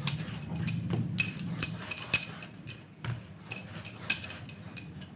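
Hands kneading warm semolina dough on a round chakla board, making irregular light taps and clicks as the dough is pressed and worked against the board.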